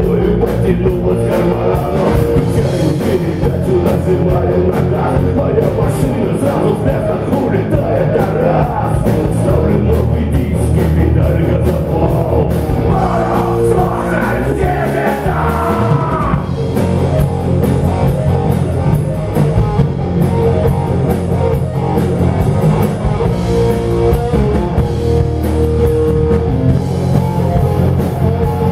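Rock band playing live: electric guitar, bass and drum kit, loud and continuous, with a lead line bending in pitch midway through.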